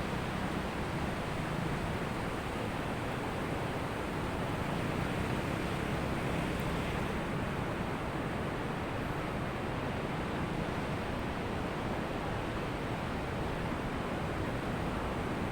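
Ocean surf washing onto a beach as a steady rush of noise, swelling a little around the middle.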